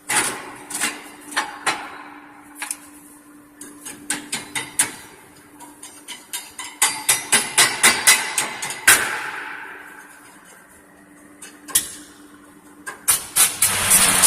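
Stick (arc) welding: the electrode being struck against the work, giving clusters of sharp snaps and crackles as the arc catches and breaks, with a steady low hum underneath. The arc holds only in short spurts, which the welder puts down to the earth clamp not gripping the rusty bench well.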